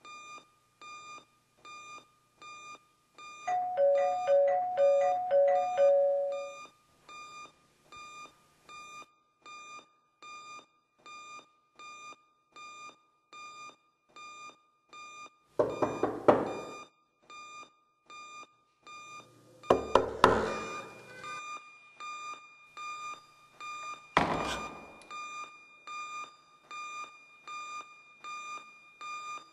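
An electronic alarm beeping steadily, about three beeps a second. A few seconds in, a louder two-note electronic chime repeats for about three seconds, and later come three loud bursts of banging, with the biggest around the middle.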